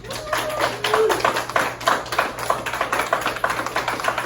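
Prize-draw ballot barrel being turned, rattling in a rapid, irregular run of sharp taps and clicks as it spins.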